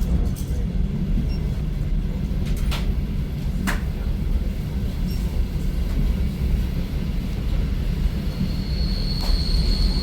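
Suburban electric train heard from inside the carriage, running with a steady low rumble, with two sharp clicks a second apart. Near the end a high, steady wheel squeal sets in as the train nears the terminal station.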